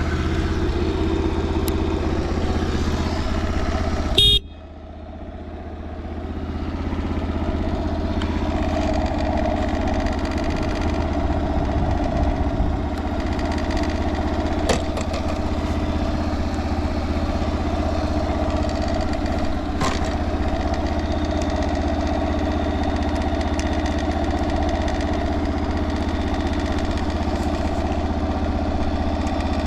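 Honda Motra's small single-cylinder four-stroke engine running steadily at idle, which the seller calls quite quiet, with no abnormal noise. About four seconds in there is a brief sharp sound with a short high tone, after which the sound dips and gradually builds back up.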